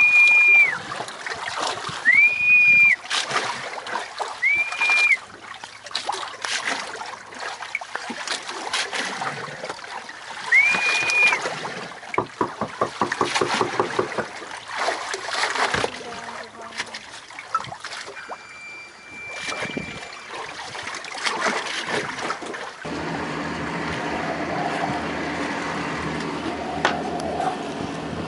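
Water splashing and lapping around a small boat, with four short high whistles in the first dozen seconds. About 23 seconds in, a boat engine's steady low idle comes in and holds.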